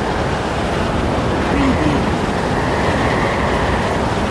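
Strong desert wind blowing, a loud, steady rush with a heavy low rumble. A faint low whistling moan rises and falls about a second and a half in.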